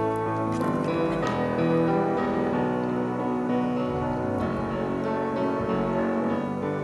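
Instrumental break in a French worship song: keyboard accompaniment playing steady chords, with no singing.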